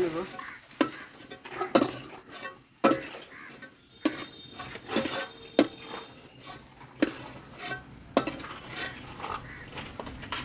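A metal spatula scraping and clinking against a metal karahi as fried prawns are scooped out of the hot oil: irregular knocks and scrapes, about one every half second to a second.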